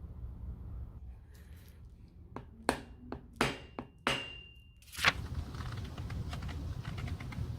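A few sharp taps of a tool on a shoe in repair, two of them with a brief metallic ring, ending in one louder strike, followed by light clicking handling noise.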